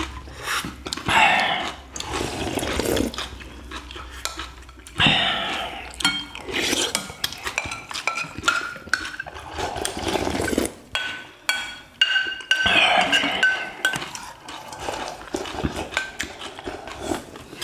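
Eating sounds at a meal: broth slurped from porcelain bowls in loud bursts, with chopsticks and spoons clicking and clinking against the bowls.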